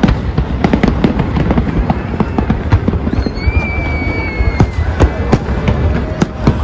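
Fireworks show going off in quick succession: many sharp bangs and crackling reports over a steady low rumble of booms, with a high whistle that falls slightly in pitch about halfway through.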